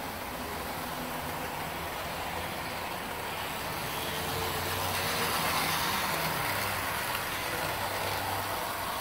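HO scale Athearn Amtrak diesel model locomotives running on the track under DC power: a steady whir of the motors and wheels on rail, a little louder around the middle.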